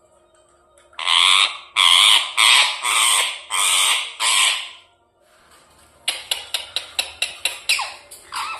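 Ringneck parrot calling: a row of about seven loud, harsh squawks, each under half a second. After a short pause comes a quick run of short chirps, about five a second, ending in a rising call.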